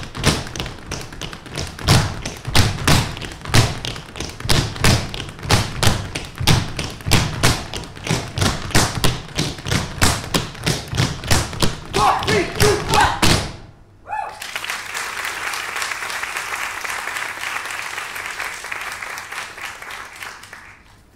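Tap shoes of a five-dancer troupe striking the stage in a fast, unaccompanied rhythm, the strokes stopping dead about thirteen seconds in. An audience then applauds, fading near the end.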